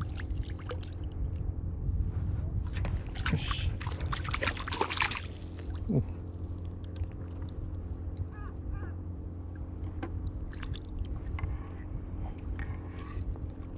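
A hooked black sea bream splashing at the water surface as it is scooped into a landing net. The splashing is loudest from about three to five seconds in, over a steady low hum.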